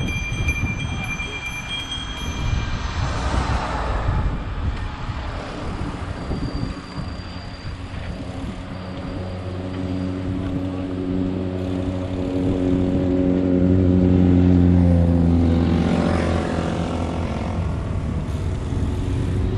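Wind rushing over a camera carried on a moving bicycle, with a motor vehicle's engine droning close by from about halfway through, growing louder and then easing a little near the end.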